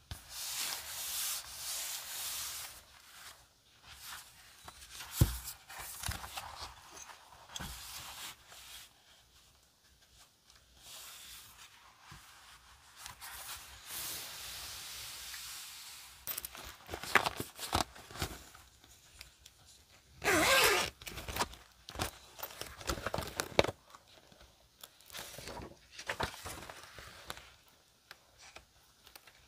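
Hands handling a paper notebook: the kraft cover and pages rustle and rub as it is opened and the pages are smoothed flat, with a sharp knock about five seconds in. About two-thirds of the way through comes a short, loud rasp, followed by scattered clicks and rustles as a mesh zipper pouch is handled.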